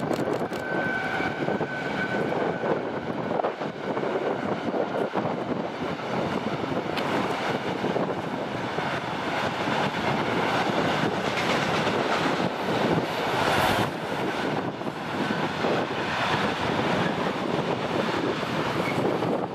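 Intermodal freight train passing, hauled by a pair of SBB Cargo International Re 484 electric locomotives, then the steady rolling noise of the container and tank wagons on the rails. A thin high tone is heard in the first two seconds as the locomotives go by.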